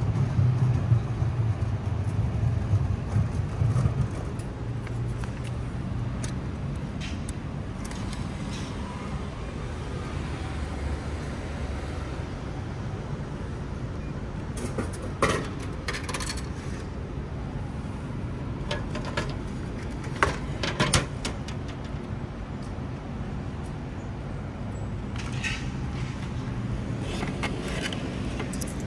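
Street traffic noise, with a vehicle's low rumble loudest in the first few seconds. A few sharp clicks and knocks come from the sweet potato vending machine: some midway, as its selection button is pressed, and a cluster near the end, as the plastic collection flap is pushed open.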